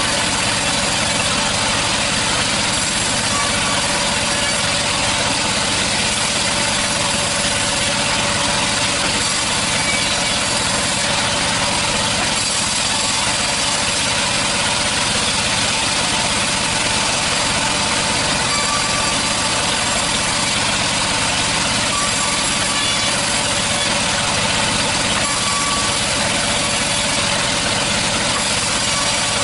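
Sawmill machinery running steadily, a dense, even mechanical noise that does not change.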